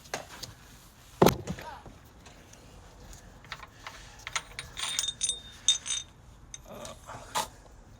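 Steel tools and engine parts being handled: a sharp knock about a second in, then a run of clinks with a short metallic ring in the middle, and another knock near the end.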